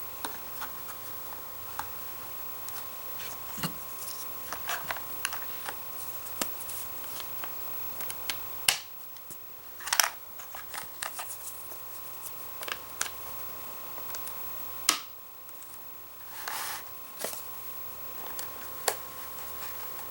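Hard plastic toy-track pieces being handled and snapped together: scattered light clicks and taps, with a couple of sharper snaps.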